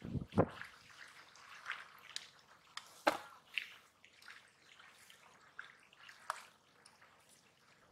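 Small wet clicks, crackles and rustles, coming at irregular moments, from hands picking through a wet pile of small fish, shrimp and snails spread on a plastic sheet.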